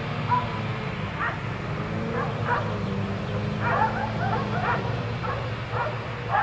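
Dogs barking repeatedly in short, irregular barks, some overlapping, over a steady low hum.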